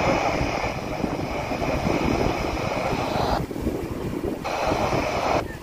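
Sea-surf noise relayed over FM and heard through an Icom IC-E91 handheld's speaker, with wind rumbling on the microphone. The radio audio drops out for about a second midway and again near the end, leaving only the wind rumble.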